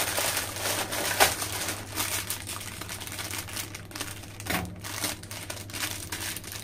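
A small foil-lined plastic snack packet crinkling as it is pulled off a strip and cut open with scissors, with a run of sharp crackles and clicks; the sharpest comes about a second in.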